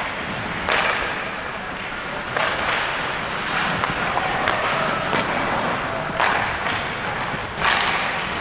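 Ice hockey play: an irregular series of sharp knocks and cracks from sticks, puck and boards, over a steady noisy background.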